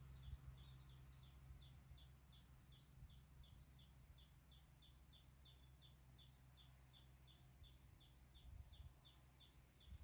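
Faint, even chirping, high and short, about four chirps a second, over a low steady hum.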